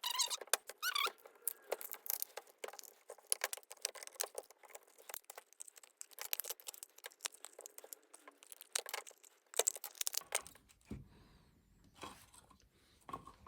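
2V cylindrical lead-acid cells and their wiring being pried and pulled out of a defibrillator battery pack by hand, with a dense run of irregular clicks, crackles and tearing. About ten seconds in it thins to a few scattered clicks. One cell is torn in the process.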